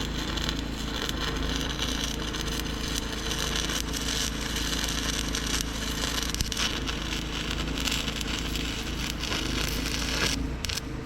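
Stick-welding arc crackling steadily as a 1/8-inch electrode burns, over a steady low hum, and breaking off near the end. The rod is burning a little cold because the welder is short of power for 1/8-inch rods.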